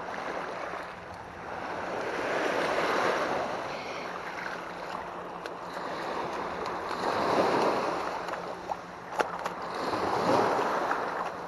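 Small waves washing in shallow surf water, rising and falling in slow swells, with a couple of sharp clicks about nine seconds in.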